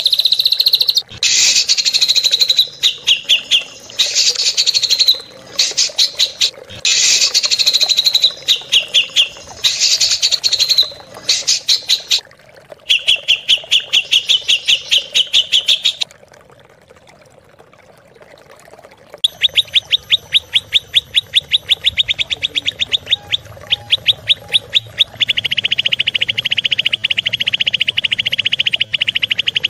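Recorded songbird giving harsh, rapid-fire 'tembakan kasar' notes: fast trains of repeated high chips in short bursts, some sliding downward in pitch. After a pause of about three seconds past the middle, a long, very fast trill.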